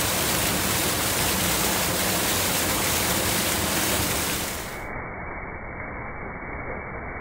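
Steady rush of river water with a full hiss. About two-thirds of the way in it cuts abruptly to a quieter, muffled rushing noise with the high end gone.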